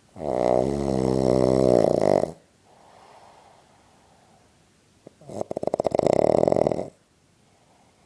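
Loud snoring: two long snores about three seconds apart, the first with a wavering pitch, the second a fast rattling flutter, with a soft breath between them.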